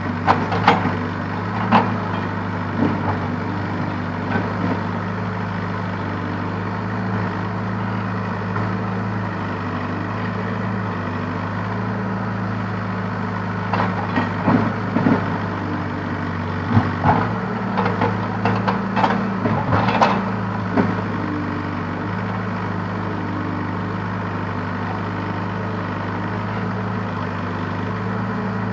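Case backhoe loader's diesel engine running steadily, with bursts of sharp knocks and rattles near the start and again for several seconds in the middle as the bucket works the rocky earth.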